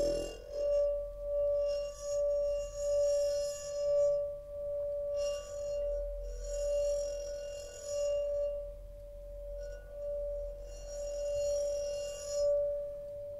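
Background music: one sustained ringing tone, like a singing bowl, swelling and fading about once a second, with patches of high shimmering overtones coming and going.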